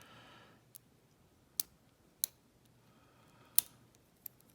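Sharp metallic clicks from lock picks working the pin stack in an American A3650 padlock's core: about five separate ticks spread out, roughly a second apart, the loudest about three and a half seconds in.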